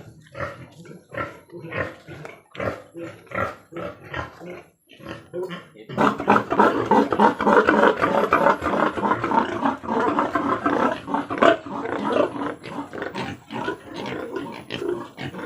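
Pigs grunting in short, repeated calls, then about six seconds in many pigs break into loud squealing and grunting together.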